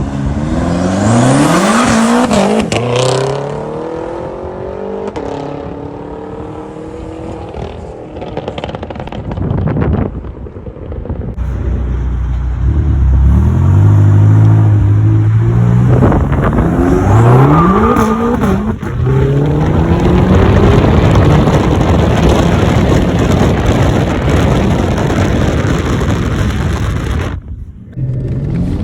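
BMW M5 engine accelerating hard through the gears: the engine note climbs and drops back with each upshift, over several separate runs that cut off abruptly between them. A heavy rush of wind and tyre noise runs under the engine.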